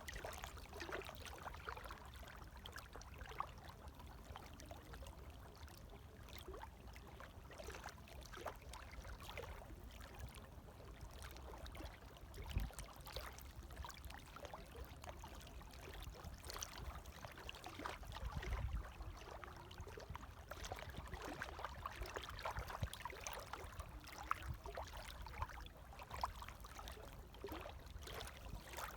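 Gentle waves lapping, with small splashes and trickling over a low rumble that swells briefly twice.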